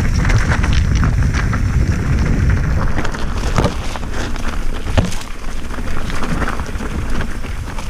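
Mountain bike descending a rough trail: wind buffeting the microphone in a low rumble, with a steady clatter of knocks and rattles from the bike over the ground and one sharper knock about five seconds in.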